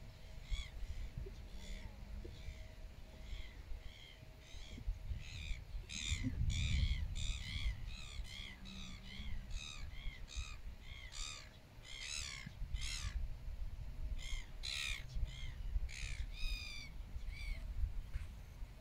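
A bird giving a long series of short, harsh calls, two or three a second, sparse at first and louder and more rapid from about five seconds in, over a low rumble.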